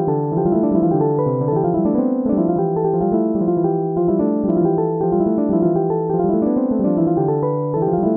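Background piano music: a keyboard playing a steady, repeating pattern of notes that rise and fall.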